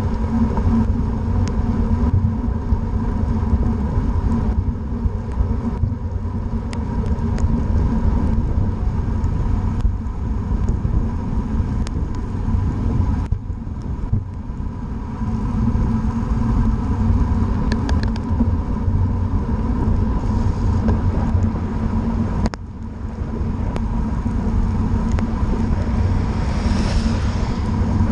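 Steady wind rumble on a bike-mounted camera's microphone, mixed with tyre hiss on wet pavement, as a bicycle rolls at about 20–25 mph through rain. A few scattered sharp ticks sound over it.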